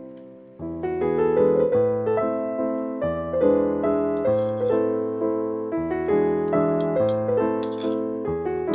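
Background piano music, a gentle melody that fills out about half a second in.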